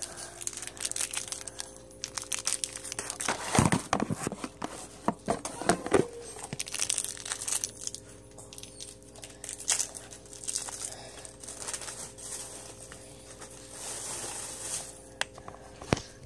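Crinkling and rustling handling noise close to a phone's microphone, with many scattered clicks and knocks that are loudest a few seconds in.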